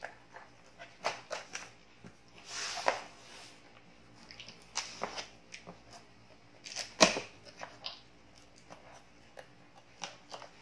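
Scissors cutting into a cardboard shipping box and its packing tape, with scattered small clicks and scrapes and a longer rasping cut about two and a half seconds in. A sharp knock about seven seconds in is the loudest sound.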